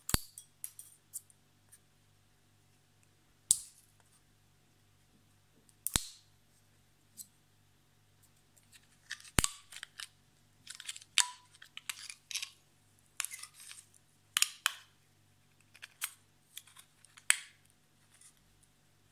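Scissors snipping through the thin aluminium of a beer can to strip it from a cured concrete casting. A few sharp snips come several seconds apart, then from about halfway a quicker run of crunching cuts.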